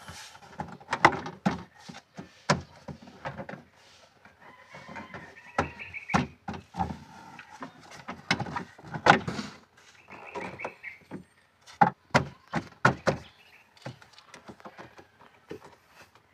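Hard plastic trunk side trim being pressed and knocked back into place by hand: an irregular run of knocks, taps and clip snaps.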